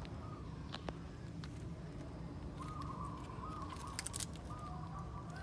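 A young puppy whimpering in thin, wavering high whines through the second half, over a steady low rumble, with a few sharp clicks about four seconds in.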